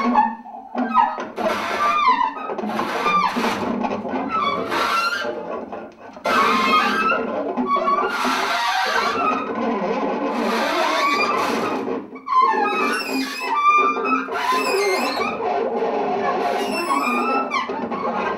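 Free improvised music from a trio of percussion, bass clarinet, and objects with lo-fi electronics: busy, uneven clattering and scraping on drums and found objects, with squealing tones that slide up and down over it.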